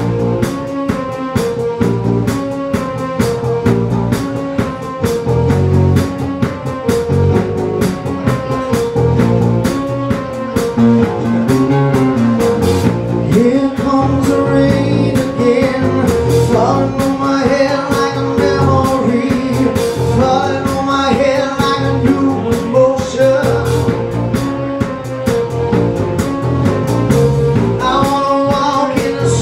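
Live band playing a steady rock beat on drums, bass and keyboard, with a man singing into the microphone over it from about halfway through.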